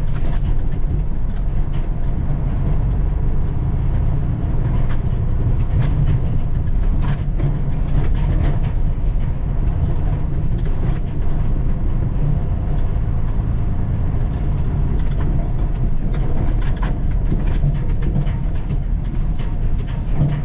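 Heavy diesel logging truck's engine running steadily, heard from inside the cab, with frequent short rattles and knocks from the cab and load.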